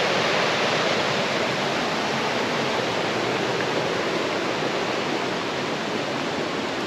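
Small waterfall rushing: a loud, steady roar of falling water with no changes.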